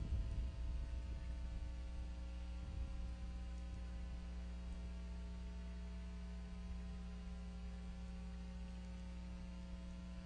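Steady electrical hum, several pitches at once over a low rumble, picked up through the eagle nest camera's microphone; the rumble is rougher for about the first second.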